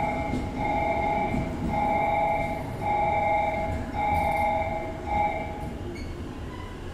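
Thunderbird limited express electric train running slowly alongside the platform as it arrives, with a low rumble of wheels and motors. Over it, an electronic warning tone beeps about once a second and stops about five and a half seconds in.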